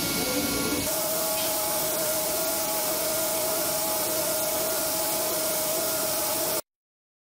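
CNC machining centre milling an engine cylinder head with a small end mill: a steady hiss with a steady whine from the spindle and cutter, which shifts to a new pitch about a second in. The sound cuts off abruptly near the end.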